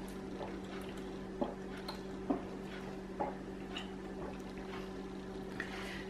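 A person gulping down a glucose-test drink from a plastic bottle, with about three soft swallows roughly a second apart. A steady low hum runs underneath.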